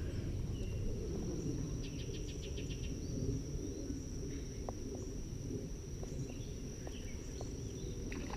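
Streamside ambience: a steady high insect drone over a low rumble, with a quick rattling run of ticks about two seconds in and a few scattered faint clicks later on.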